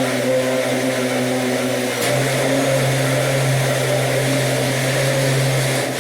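Countertop blender motor running steadily, blending a thick milk-and-oil mayonnaise, with a brief dip in its hum about two seconds in.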